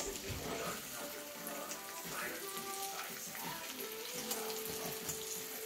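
Oil sizzling and crackling steadily under egg-dipped bread rolls (bread turon) frying in a small pan, with music playing in the background.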